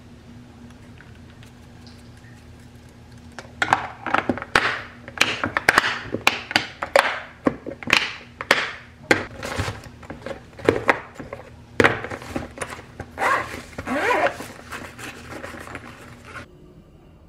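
Quiet room hum for a few seconds, then a run of sharp clicks and clacks as locking lids are snapped onto stainless-steel lunch containers and the containers are set down and stacked. Some scraping and rustling comes toward the end.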